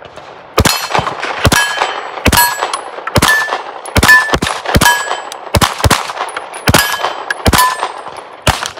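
Atlas Gunworks Erebus compensated pistol firing a string of about a dozen shots at a steady pace, with steel plate targets ringing after the hits.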